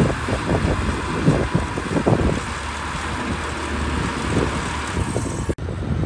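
Liugong B160C crawler bulldozer's diesel engine running steadily under load as its blade pushes soil, with gusts of wind buffeting the microphone. The sound drops out for an instant about five and a half seconds in.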